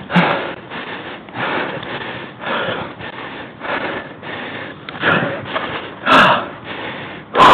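A person breathing hard close to the microphone, with a rhythmic puff of breath about every half second. Two louder, voiced exhalations come about six seconds in and at the very end.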